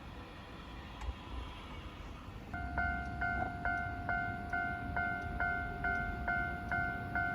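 Japanese railway level-crossing warning bell starting up about two and a half seconds in, its electronic two-tone clang repeating a little over twice a second: the signal that another train is approaching. Before it, a low rumble.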